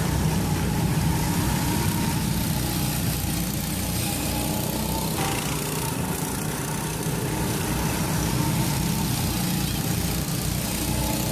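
Small go-kart engines running steadily as karts drive around a track, with a small-engine hum. The sound changes abruptly about five seconds in.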